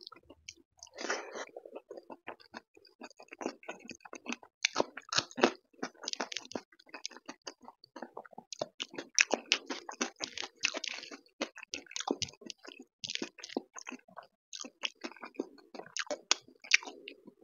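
Close-up chewing of a mouthful of dal, rice and crispy fried potato shreds: wet mouth sounds with irregular crisp crunches and clicks.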